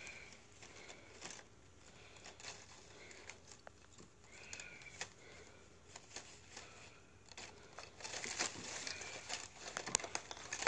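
Faint rustling and crinkling with scattered light clicks and a few brief faint high squeaks. The rustling grows louder near the end as the phone is handled and moved.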